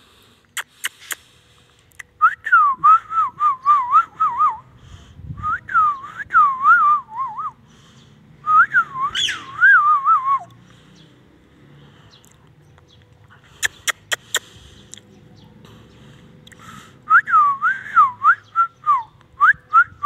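Indian ringneck parakeet whistling in warbling runs of rising and falling notes, four runs of about two seconds with pauses between, with a few sharp clicks in the gaps.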